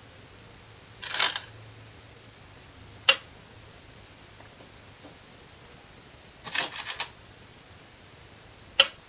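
Size 36 (10.2 mm) glass Go stones on a 2-inch Shinkaya floor Go board: twice, a short clatter of stones, as when a stone is taken from the bowl, followed by a single sharp click of a stone being placed on the board, about 3 and 9 seconds in. The placements are normal, not slammed.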